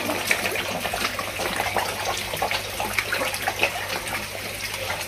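Koi crowding at a pond's surface, splashing: a busy, irregular patter of many small splashes over a wash of water, with a low steady hum underneath.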